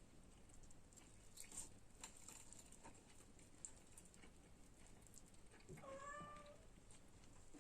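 Near silence with faint scattered light clicks, and one short high-pitched cry lasting under a second near the end.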